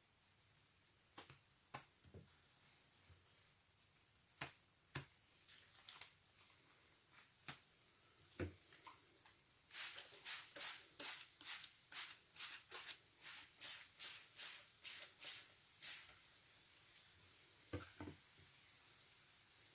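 A sponge loaded with washing machine liquid suds being squeezed by hand: a few faint wet clicks at first, then from about ten seconds in a quick run of about fifteen squeezes, a little over two a second, lasting about six seconds.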